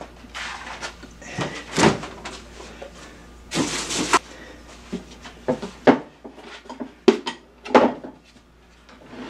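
Kitchen doors and containers being handled while fetching food: a string of separate knocks and clunks, with a longer rustling scrape about three and a half seconds in.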